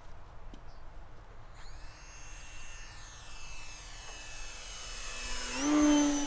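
Electric motor and propeller of a Lightning 2100 RC motor glider, a pitched whine growing louder as the model makes a fast low pass. It is loudest near the end, where its pitch shifts abruptly as it goes by.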